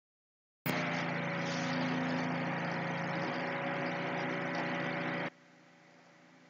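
A steady machine hum, an even noise with a few steady tones running through it. It starts abruptly about half a second in and drops suddenly to a faint hum about five seconds in.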